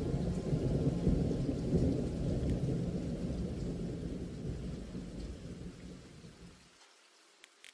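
Thunder-like low rumble with rain noise from the background soundtrack, fading out and cutting off about seven seconds in, followed by two faint clicks.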